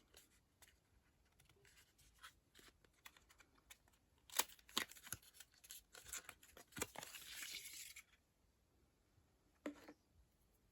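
Faint handling of product packaging: light clicks and taps, then a stretch of tearing and rustling from about four to eight seconds in, and one more tap near the end.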